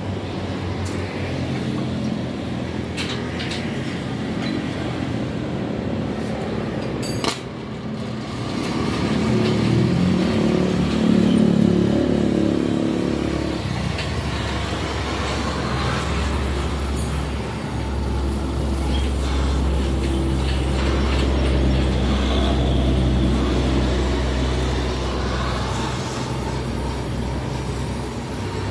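Arc welding on a Yamaha Mio motorcycle exhaust pipe: a steady hiss, with a low running hum underneath that grows stronger about halfway through.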